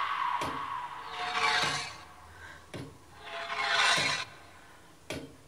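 A person's heavy, rasping breaths: a drawn-out breath about every two seconds, each with a faint voiced edge.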